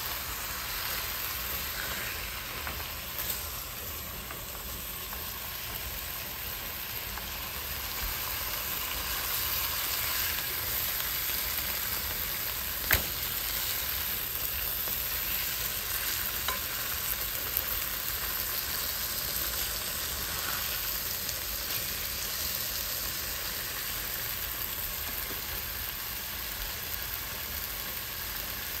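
Boneless tilapia frying in butter in a pan: a steady sizzle, with one sharp click about halfway through.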